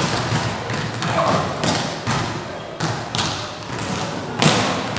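Volleyball being struck during a rally: a series of sharp smacks, each echoing around a large sports hall, the loudest a little before the end.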